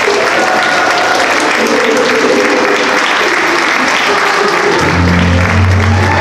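An audience applauding while music plays, with a deep bass note coming into the music near the end.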